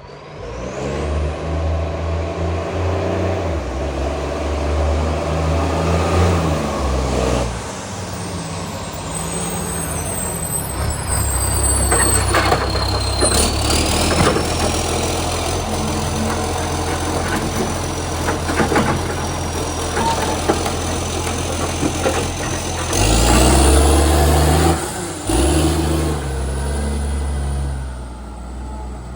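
Garbage truck's diesel engine repeatedly revving up and dropping back, made much louder by a leaking exhaust pipe. A run of clanks comes around the middle, a high whine glides down and back up, and the loudest rev comes near the end.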